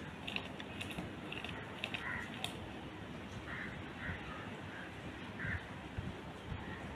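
Beer poured from a glass bottle into a steel bowl of cake batter, a low, uneven splashing. A bird gives about six short, harsh calls in the background, like a crow's caws.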